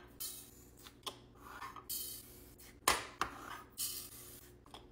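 Sprinkles poured into glass jars in short rattling pours, with sharp clicks and knocks of glass jars and lids being handled. The loudest is a single sharp knock about three seconds in.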